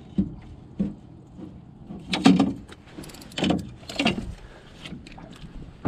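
A landing net and its handle being grabbed and knocked against the hull of a small aluminum johnboat: two short sharp knocks in the first second, then three louder clattering clunks about two, three and a half, and four seconds in.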